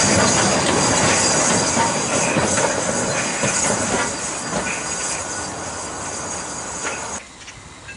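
Two steam locomotives, Caledonian Railway 0-6-0 No. 828 and Jinty 3F 0-6-0T No. 47406, running past close by: wheel and rail noise with steam escaping, fading as they move away, then cut off abruptly about seven seconds in.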